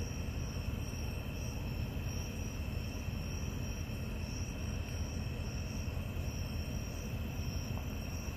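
Insects, such as crickets, chirping steadily outdoors at night, with one high chirp pulsing at an even pace, over a steady low rumble.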